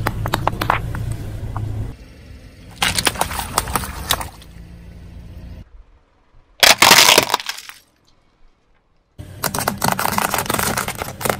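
A car tyre rolling over and crushing things in a string of short cuts: a low rumble with squelches and clicks as toothpaste tubes burst, a burst of sharp cracks, one loud crash about seven seconds in as a plastic toy airplane breaks, then near the end a dense crackling as a row of plastic straws snaps under the tyre.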